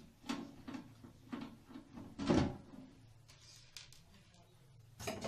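A screwdriver working screws out of an amplifier's sheet-metal cabinet: a run of small clicks, a louder clunk about two seconds in, and another knock near the end.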